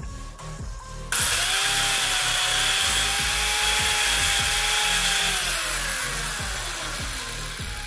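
Handheld electric disc cutter switched on about a second in, running at full speed with a loud grinding hiss and a steady high whine as it cuts into a water pump capacitor's plastic casing. It is switched off after about four seconds, and the whine drops in pitch as the disc spins down.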